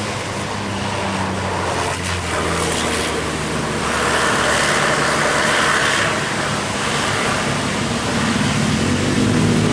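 A heavy road vehicle passing close by. Its engine drones steadily, a rush of tyre and wind noise is loudest about halfway through, and the engine note grows stronger again near the end.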